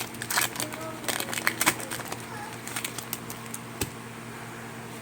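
Crinkly trading-card pack packaging being handled, a quick run of crackles and clicks over the first two seconds, then fainter rustling and a single knock near four seconds.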